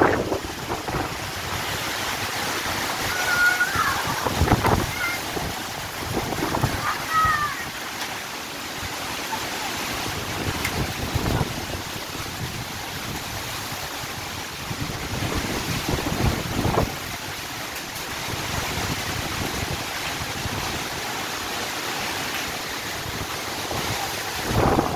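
Storm wind rushing through the trees in gusts, with wind buffeting the phone's microphone. A few short high chirps a few seconds in.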